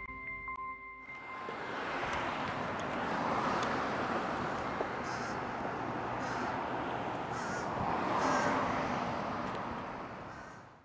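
Roadside outdoor ambience: traffic noise swelling and easing as vehicles pass, with birds calling several times. The end of a music track is heard briefly at the start, and the ambience fades out near the end.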